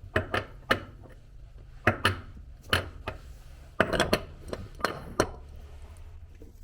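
Crockery being handled, clinking and knocking: about ten sharp knocks in small clusters over several seconds.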